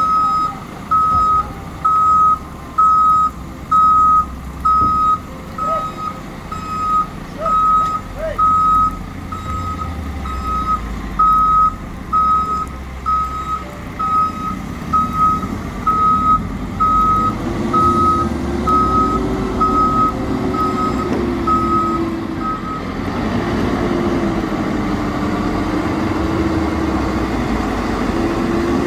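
JCB 4CX backhoe loader's reversing alarm beeping about once a second as the machine backs down a flatbed truck's ramps, over its running diesel engine. The beeps stop about three-quarters of the way through, and the engine goes on running, rising and falling in pitch.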